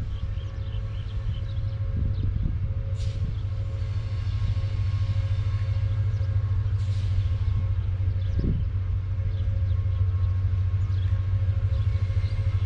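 CSR SDA3 (U20) diesel-electric locomotive approaching at the head of a freight train: a steady low engine rumble that slowly grows louder, with faint steady tones above it.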